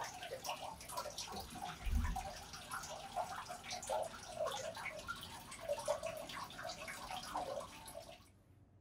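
Water pouring from a spout into an open-air bath, a steady patter of small splashes and trickling, with a low thump about two seconds in. It cuts off suddenly near the end.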